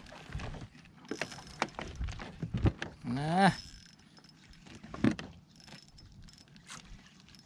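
Spinning reel being cranked against a fish on a bent ultralight rod: irregular small metallic clicks and rattles. A short wordless voice glides up and down about three seconds in.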